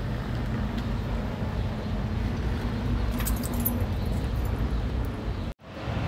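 Steady low vehicle rumble with a faint hum. About three seconds in there is a brief jingling rattle, as of loose metal or glass bits, and the sound cuts out for a moment near the end.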